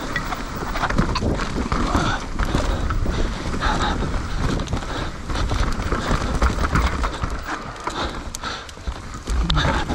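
Enduro motorcycle ridden over rough, uneven ground, with irregular knocks and thumps over a noisy rumble, heard from a camera on the rider.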